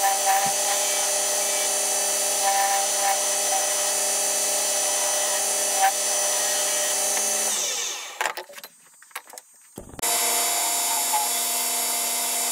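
A 1970s Coronet woodworking lathe running fast on its direct drive, reduction gear removed, as a gouge cuts a spinning ash blank, with short scraping sounds of the cut. About seven and a half seconds in the motor hum falls in pitch and fades as the lathe winds down, leaving a couple of seconds of near quiet with a few clicks, then the running lathe is heard again suddenly near the end.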